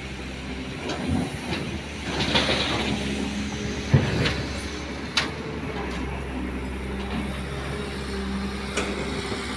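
Diesel engines of an excavator and dump trucks running steadily, with a hiss about two seconds in and several sharp metallic clanks, the loudest about four seconds in.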